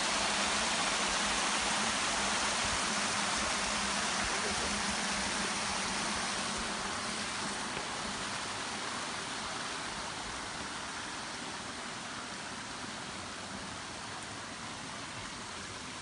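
Rushing water of a waterfall and stream, a steady hiss that gradually grows fainter.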